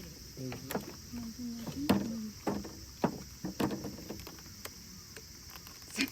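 Tableware and cooking utensils clinking and knocking at a camp table: a string of irregular sharp knocks, with a low voice murmuring in the first two seconds.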